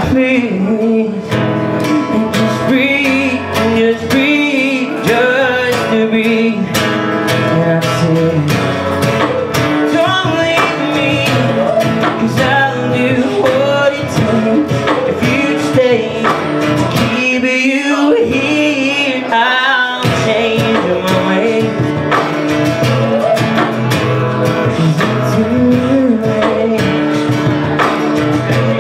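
A man singing over a strummed acoustic guitar.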